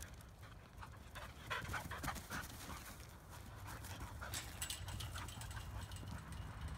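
A dog panting, with scattered clicks and rustles around it.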